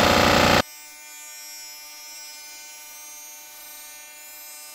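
Cylinder head surfacing machine running loudly with its cutter spinning, cut off abruptly less than a second in, leaving only a faint steady hum with several even tones.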